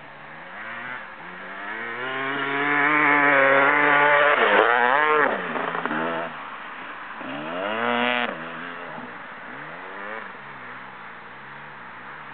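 Dirt bike engine revving hard under throttle, its pitch climbing and wavering, loudest about three to five seconds in before dropping off sharply. A second, shorter burst of throttle rises in pitch near eight seconds and cuts off suddenly, then the engine runs lower and unevenly.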